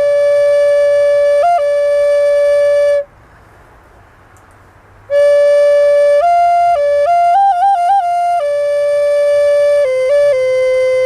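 Solo flute-like melody of slow, long-held notes with quick trills and turns. It breaks off for about two seconds a few seconds in, then picks up again.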